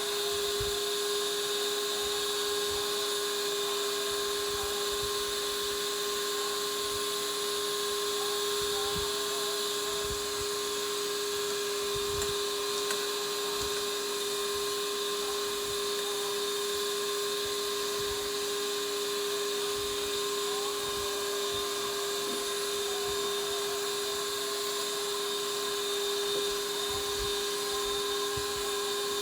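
Electric kitchen mixer running at a constant speed with a steady motor whine, likely beating the sweet potato pie filling.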